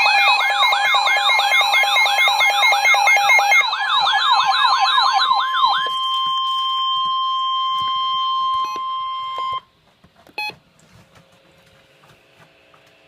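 Electronic emergency-alert alarm: a fast warbling siren-like sweep, several rises and falls a second, over steady tones, then about three and a half seconds of a single steady alert tone just above 1 kHz that cuts off suddenly. A brief click follows, then only a faint hum.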